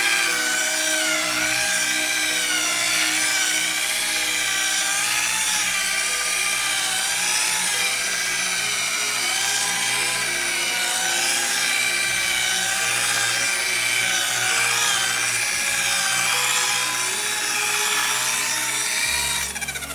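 High-speed rotary buffer with a polishing pad running steadily on car paint, its motor whine wavering up and down in pitch as the pad is worked under pressure. This is the polishing stage that follows compound cutting.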